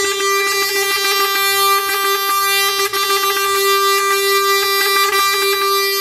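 Truck air horns held in one long, steady blast, with a low pulsing beat underneath.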